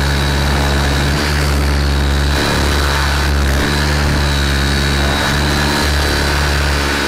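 Thunder Tiger E700 electric radio-control helicopter in flight: the rotor blades' steady low drone with a thin high motor whine over it. The drone dips and swells again a few times.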